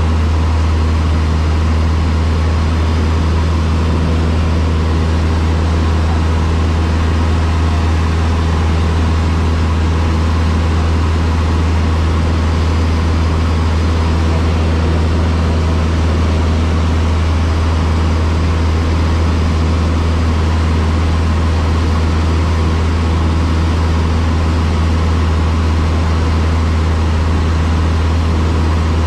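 Cessna 152's four-cylinder Lycoming engine and propeller running at a steady, unchanging drone.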